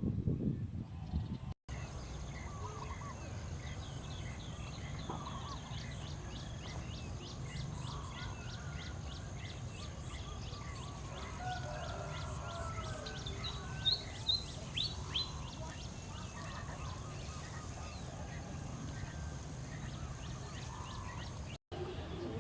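Several birds calling and chirping, with quick series of short chirps and some lower calls, over a steady high hiss and low background rumble.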